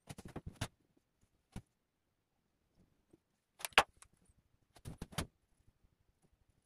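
Short clicks and clatters of felt-tip markers being handled: caps taken off and snapped on, and a marker set down on a wooden workbench. They come in a few quick clusters, the loudest a little past halfway.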